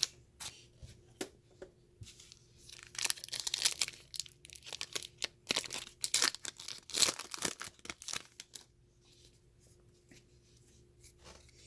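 Trading-card pack wrapper being torn open and crinkled by hand: a run of crackling rips and rustles, busiest in the middle of the stretch and dying down over the last few seconds.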